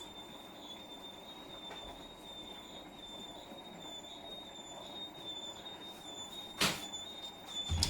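A Hotpoint appliance running with a continuous high-pitched squeak that wavers slightly in pitch, over a low running rumble; a sharp knock comes about six and a half seconds in and another near the end.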